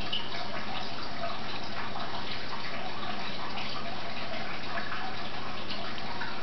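Steady rushing background noise with a faint low hum, even throughout, with no distinct events.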